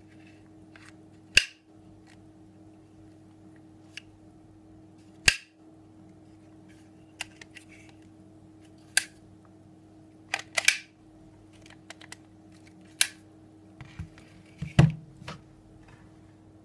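Sharp plastic clicks from an IPSC competition holster's self-locking retention latch as it is worked and a Glock pistol is snapped into it, a few seconds apart, with a quick double click about ten seconds in. Near the end comes a duller knock as the pistol and holster are set down on a wooden table.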